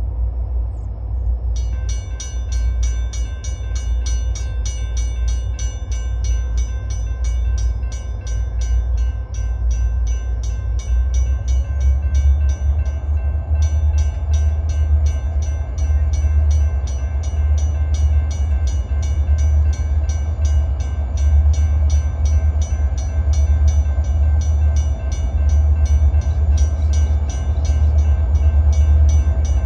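Portland and Western diesel freight train approaching, a low rumble that grows stronger toward the end. From about two seconds in, a bell rings with rapid, evenly spaced strokes.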